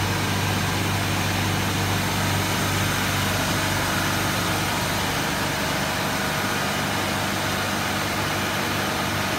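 Cube ice machine running, its refrigeration compressor giving a steady mechanical hum with a low drone and an even hiss over it.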